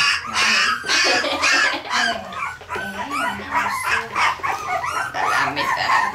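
A litter of young Parson Russell Terrier puppies squealing and yipping, with many short high-pitched calls overlapping throughout.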